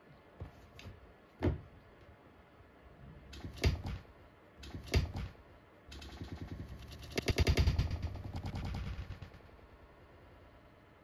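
Kittens playing on a hollow plastic step stool: three sharp knocks of paws and bodies against the plastic, then a rapid clatter of claws scrabbling on it for about three seconds.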